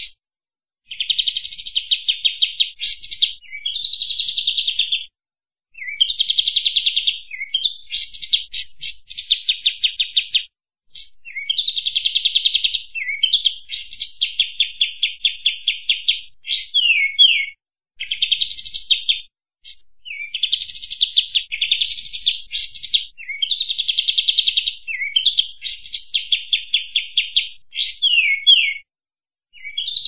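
A kapas tembak bulbul singing energetically: phrases of a few seconds made of rapid runs of high chirping notes, broken by short pauses and a few quick down-slurred notes.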